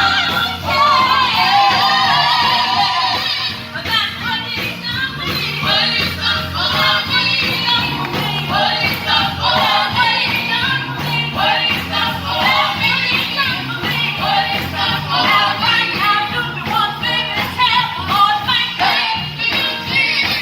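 Live gospel music: a choir singing over a band with a steady beat.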